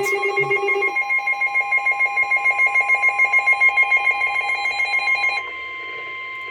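NOAA Weather Radio's steady 1050 Hz warning alert tone, sounding ahead of a new severe thunderstorm warning. For about the first five seconds a second electronic alarm beeps in a rapid pulse over it, several times a second, then stops, leaving the single steady tone.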